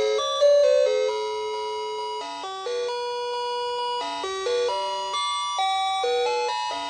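Simple electronic chip melody from a musical Santa figure's sound module, playing a tune one clean, beep-like note at a time, each held a fraction of a second.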